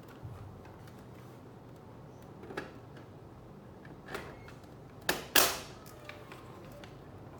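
A few sharp clicks and knocks from hands handling computer parts, the loudest a close pair about five seconds in, with softer ticks after.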